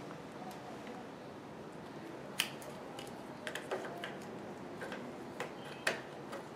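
A few scattered light clicks and taps over a faint steady hiss, from handling and setting up a battery and charging-system tester.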